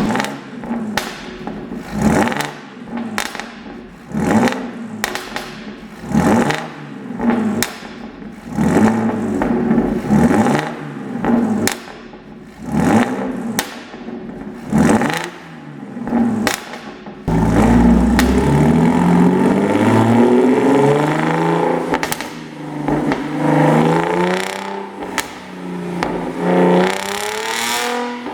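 Audi A7 3.0 TFSI supercharged V6 engine and exhaust being revved in short blips about once a second, with pops and crackles on each lift-off from the tuned pop-and-crackle map. About seventeen seconds in it changes to a longer, louder run with the engine's pitch climbing.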